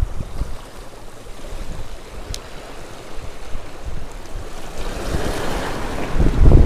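Small waves washing over shore rocks, swelling into a louder hissing wash about five seconds in. Wind buffets the microphone with a low rumble near the end.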